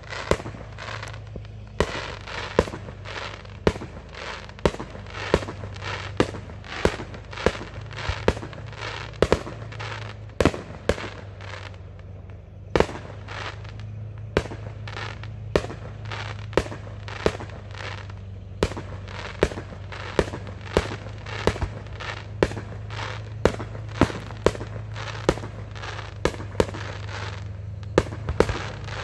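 Aerial fireworks going off in a long volley of sharp bangs, roughly one to two a second, with crackling between them and a brief lull a little before halfway.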